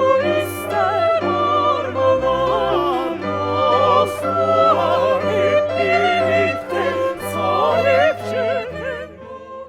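Operatic singing with orchestral accompaniment, fading out near the end.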